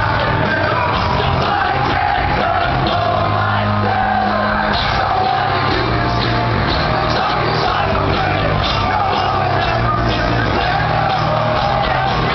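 A hard rock band playing live at full volume: electric guitars, bass and drums under a sung and shouted lead vocal, heard from among the crowd.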